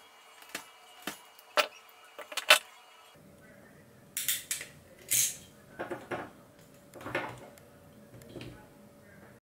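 Hand tools working the thin cores of a shielded cable: a handful of sharp clicks and snips from wire-stripping pliers in the first few seconds, then a crimping tool and the cable being handled, several short duller noises.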